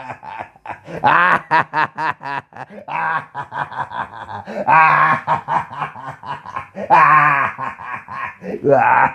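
A person laughing hard, a quick run of short ha-ha pulses broken by a few longer, higher drawn-out cries about five, seven and nine seconds in.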